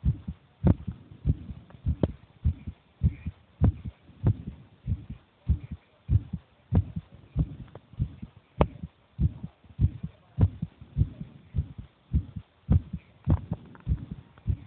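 A ten-year-old child's heartbeat: steady lub-dub beats, a strong thump followed closely by a weaker one, about one and a half beats a second.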